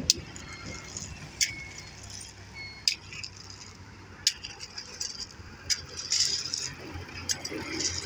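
Steel fork tines striking and raking through crushed stone aggregate, a sharp clink about every second and a half, with loose stones rattling between the strokes.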